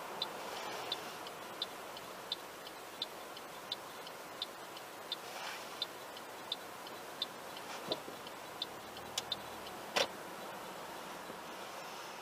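Car's indicator relay ticking steadily, about three ticks every two seconds, over low cabin noise as the car turns and comes to a stop, with a louder single click about ten seconds in.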